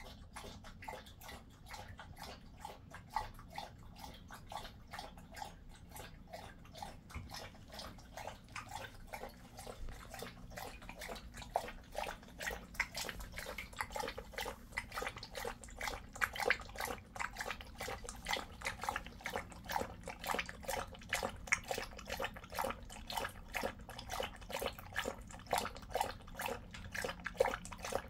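Jindo dog lapping water from a stainless steel bowl: a quick, steady run of wet laps that grows louder about ten seconds in.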